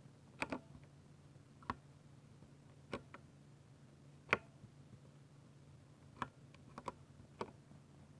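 Keys on a 60% mechanical keyboard with Ducky silver (linear) switches being pressed slowly, one at a time: about ten separate clacks, a few in quick pairs, over a faint steady hum.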